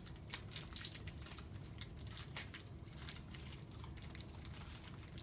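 Small plastic toy and candy packets crinkling and rustling in hands as they are worked open, in scattered short crackles.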